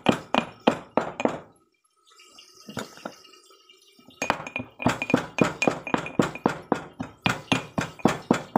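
Metal pestle pounding ginger and garlic in a tall metal mortar: quick clinking strikes, about four a second, each with a short metallic ring. The pounding stops about a second and a half in and starts again after a pause of a couple of seconds.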